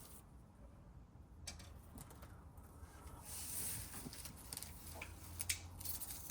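Light rustling and scraping with scattered soft clicks, denser for about a second near the middle: hands working potato plants and soil in a grow bag.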